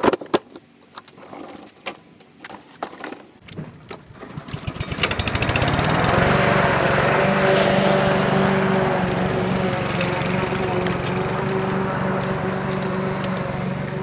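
A few clunks and knocks from the plastic grass catcher of a walk-behind petrol lawn mower, then the mower's engine starts about four to five seconds in, builds quickly and runs steadily for the rest of the time.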